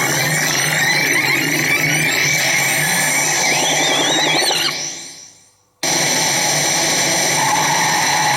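CR Tsurikichi Sanpei pachinko machine in play: a dense, steady clatter with the machine's electronic tones and a warbling sound effect near the middle. About five seconds in the sound fades out, then cuts back in suddenly at full level.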